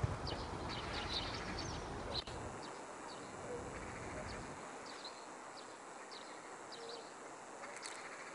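Small birds chirping in short, scattered calls, over a low rumble that dies away about halfway through.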